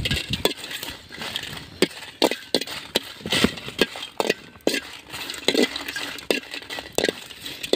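Steel ladle clinking and scraping against a wide metal wok while dry red chillies are stirred and roasted. The sound is a string of irregular sharp clinks and taps, two or three a second.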